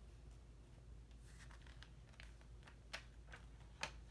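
Near silence, with a few faint clicks and light paper rustles from the pages of a book being handled; two of the clicks, about three and four seconds in, are a little louder.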